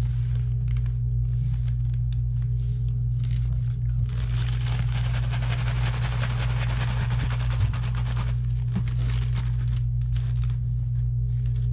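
Plastic zip-top bag crinkling as walleye pieces are worked in crushed Hot Cheetos, then shaken for about four seconds in a dense rustle of crumbs and plastic. A steady low hum runs underneath throughout.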